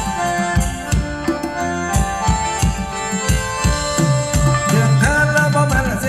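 A live band plays Isan-style ram khaen dance music: a steady drum beat of about two strokes a second under held melody notes.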